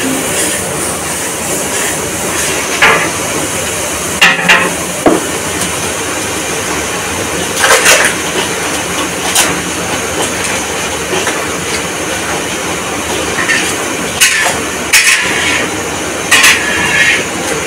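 Steady rushing of a gas burner heating a wok of oil, with occasional sharp clinks and knocks of steel bowls.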